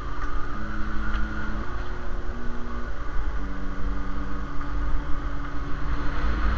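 Low rumble of a motorcycle ride, wind and engine together, under background music of held notes that step to a new pitch every second or so.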